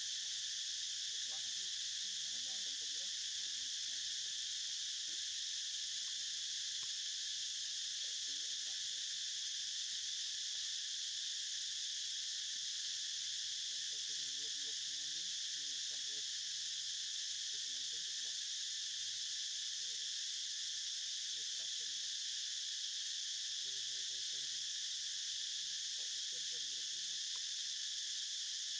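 Steady, dense insect chorus: an unbroken high-pitched drone in several layered bands that does not change. Faint, brief low sounds come and go beneath it.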